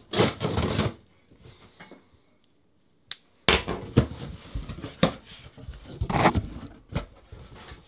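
A cardboard shipping box being opened by hand: packing tape slit and peeled off, then the cardboard flaps pulled open, in irregular scraping, ripping and rustling noises with a few sharp clicks. There is a quiet gap of a couple of seconds after the first burst.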